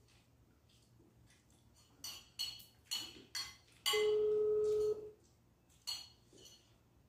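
A few sharp clicks and clinks from eating and from a plastic water bottle being picked up and opened, then a loud, perfectly steady beep-like tone lasting about a second, followed by one more click.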